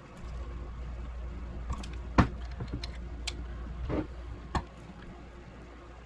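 Hand crimper squeezing a yellow insulated wire terminal: one sharp click about two seconds in, then a few fainter clicks and handling noises, over a steady low hum.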